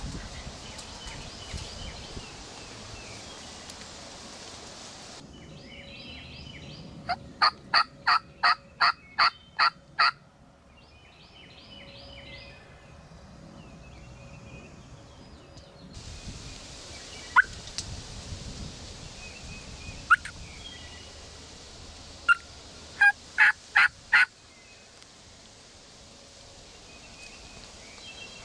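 Turkey yelping: a run of about eight evenly spaced loud yelps, a couple of single clucks, then a quicker run of four or five yelps near the end.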